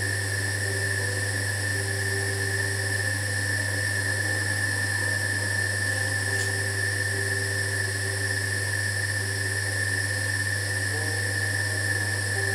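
Electric potter's wheel running at a steady speed: a constant motor hum with a steady high whine over it.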